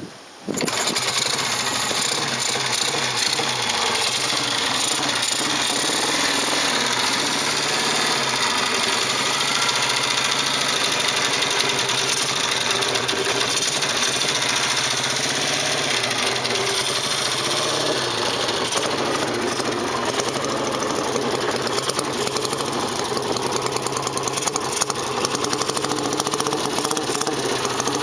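Vintage Norton motorcycle engine catching about half a second in, then running at a steady idle.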